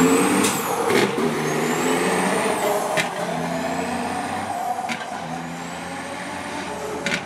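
Diesel semi tractor accelerating hard down a drag strip: the engine winds up, shifts and winds up again about every two seconds, its turbo whistle rising with each gear and dropping at each shift, with a short click at the shifts. It fades as the truck pulls away.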